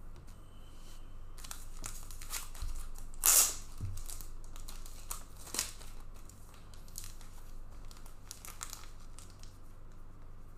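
Trading-card packaging being torn open and crinkled, with a sharp rip a little over three seconds in and a smaller one about two seconds later, amid light rustling and clicks from handling cards.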